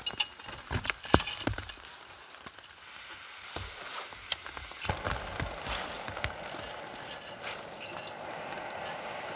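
A wire grill rack clinking and rattling as it is set and adjusted over a gas canister camping stove, with a few sharp metal knocks. A steady rushing hiss from the stove's gas burner builds from about three seconds in and carries on under the handling.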